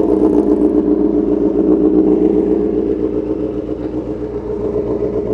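2012 Honda CBR1000RR's inline-four idling steadily through an aftermarket SC-Project exhaust, a very raspy sound, while the engine warms up before riding.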